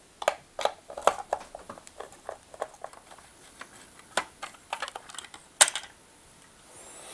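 Screwdriver working the screws out of a plastic vacuum cleaner motor cover and the cover being handled: a scatter of small clicks and taps, with one louder click about five and a half seconds in.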